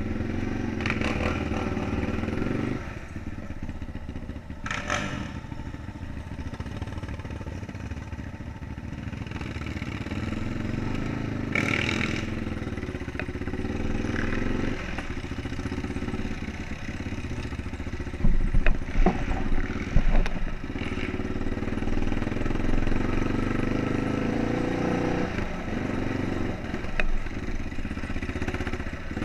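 Four-wheeler engine running on a bumpy dirt trail, its pitch rising and falling as the throttle opens and closes, with clattering and scraping over the ground. Several loud knocks come about two-thirds of the way through.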